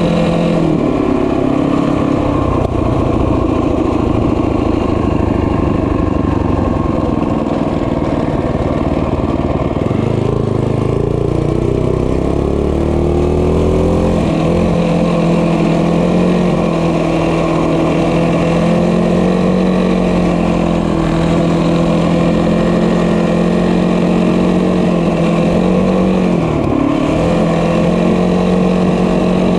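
Small motorbike engine running steadily under way, its pitch rising and falling with the throttle: it climbs about ten seconds in and dips briefly before picking up again near the end.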